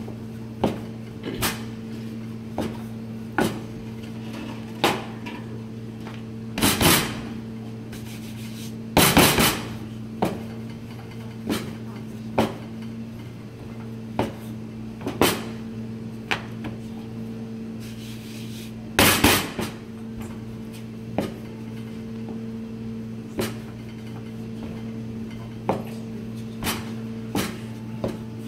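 Wooden rolling pin knocking and rolling on a plastic cutting board as pasta dough is rolled out into a sheet. There are sharp knocks about once a second, and louder, longer clatters three times, about 7, 9 and 19 seconds in. A steady low hum runs underneath.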